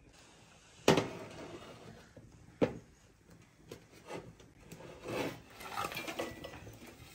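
Metal pot lid heaped with hot charcoal ash, knocking sharply twice as it is handled, then a scraping rustle as the ash slides off the tilted lid. The lid carried embers for top heat and is being cleared now that the cooking is done.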